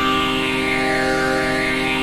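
Novation Circuit Tracks synth patch playing a held chord of many steady tones, with a slow sweep of brightness in the upper range.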